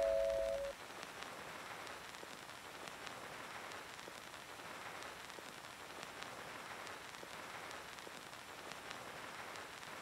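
The last held notes of background music fade out within the first second, leaving a faint steady hiss with a few tiny ticks.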